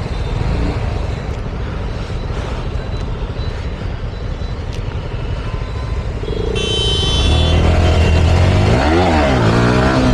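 Wind rush and road noise from a moving Yamaha R15M motorcycle. About two-thirds of the way in, its single-cylinder engine comes up loud as it is revved, the pitch dropping and then climbing again.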